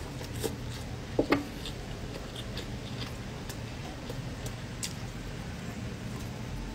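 Mouth eating sounds close to the microphone: soft chewing and smacking as fingers are put to and sucked at the mouth, with two loud wet smacks in quick succession about a second in. A low steady hum sits underneath.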